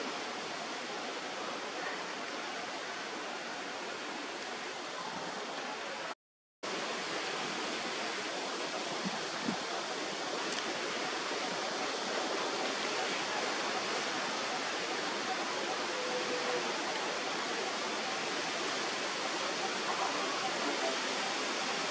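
A steady, even hiss like rushing water, cutting out completely for about half a second around six seconds in.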